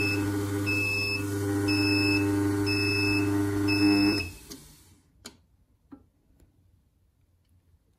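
Ultra wet grinder's motor running under its atta-kneading attachment while the machine beeps about once a second to signal that the timed kneading cycle is done. The motor cuts out about four seconds in, followed by two faint clicks.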